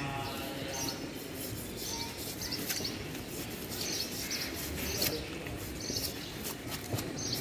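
A large knife blade scraping scales off a tilapia on a wooden chopping block, in short rough strokes roughly once a second.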